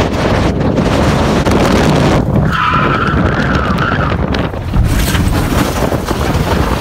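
Wind buffeting the microphone of a phone held out of a moving Jaguar XF's window, over the car's road noise. A high squeal is held for about a second and a half, starting about two and a half seconds in.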